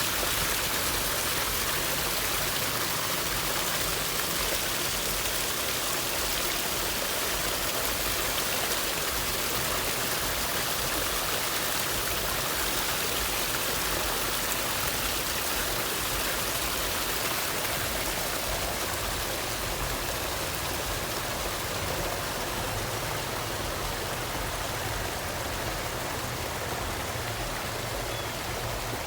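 Running water from a garden water feature: a steady, even rush of falling and flowing water.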